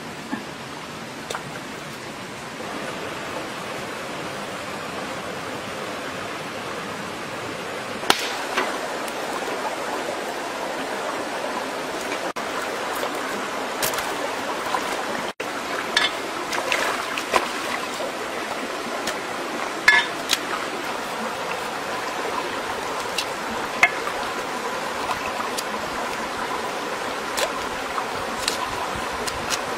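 Shallow stream running steadily over rocks, growing louder about eight seconds in, with scattered sharp clicks and knocks over the water.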